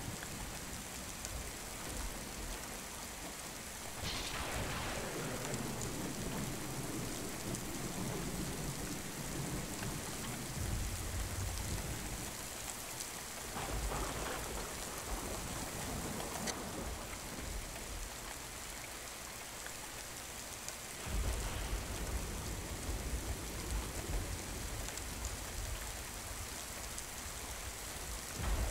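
Chopped garlic and onion sizzling in hot oil in a stainless steel pot, a steady crackling hiss, stirred now and then with a wooden spoon.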